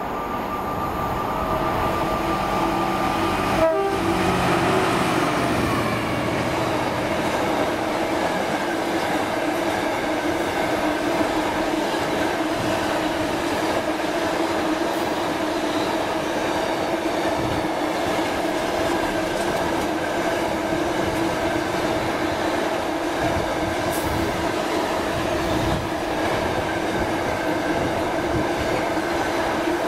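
A Class 66 diesel locomotive passes close with its two-stroke engine working, with a sharp knock just under four seconds in. A long train of loaded container wagons then rolls by with a steady rumble of wheels on rail.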